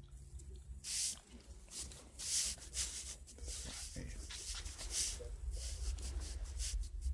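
Fabric rustling: clothes on a rack rubbing against the microphone as they are pushed aside, in a string of irregular scratchy swishes over a low steady hum.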